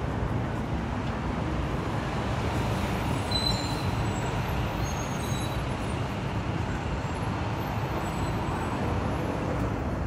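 Steady city road traffic noise: a continuous rumble of passing vehicles, with a few faint high squeaks over it.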